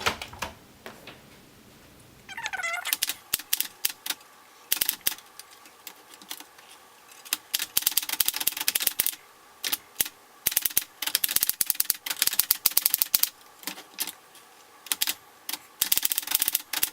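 Keys striking on a 1928 Remington Portable No. 2 manual typewriter. The strokes come in quick runs with short pauses between them, starting a couple of seconds in.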